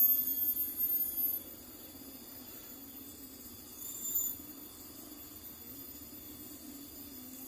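Steady high-pitched chirring of insects such as crickets, with a louder stretch of handling noise in the first second and a half and a brief swell of the chirring about four seconds in.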